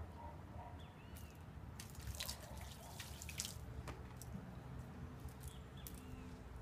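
Faint water dripping and splashing onto a wet wooden deck around a plastic bucket, in scattered small splashes that are busiest in the middle, over a low rumble. A few short bird chirps come through now and then.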